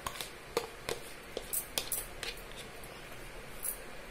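A steel spoon clicking and scraping against a plastic bowl while mixing grated coconut with tamarind pulp. The short clicks come several in the first two seconds or so, with one more near the end.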